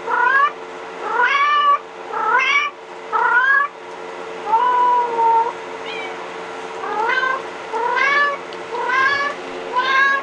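Recorded kitten mewing played through a phone's speaker: short, high, rising mews about once a second, with one longer, flatter mew about halfway through.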